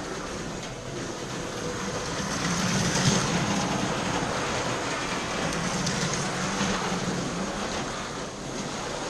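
Slot cars running around a plastic track, their small electric motors whirring and the cars rattling along the slots, swelling louder as cars pass close about three seconds in and again later.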